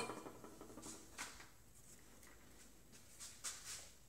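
Near silence, with a few faint short hisses and ticks from hand-soldering a capacitor lead onto a circuit board, about a second in and again after three seconds.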